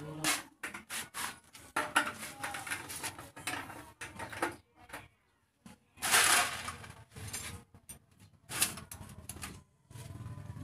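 Irregular metallic clicks, knocks and clatter of hand tools and engine parts being handled during motorcycle engine reassembly, with a louder, noisy clatter about six seconds in.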